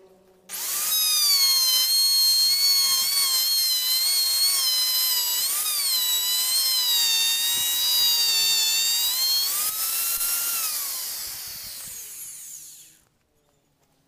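Electric plunge router switched on about half a second in, running with a high whine that wavers and dips in pitch as the bit cuts a recess for a door lock into the wood. Near the end it is switched off and its pitch falls as it spins down to a stop.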